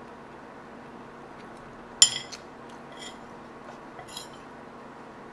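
Metal spoon clinking against a ceramic plate while eating: one sharp, ringing clink about two seconds in, then a few lighter taps and scrapes as food is scooped up.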